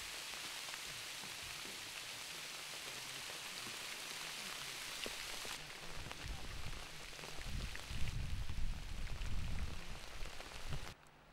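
Steady rain falling, an even hiss with scattered drops. About six seconds in the sound changes: a low rumbling comes in and is loudest near the end, then the sound drops away suddenly just before the close.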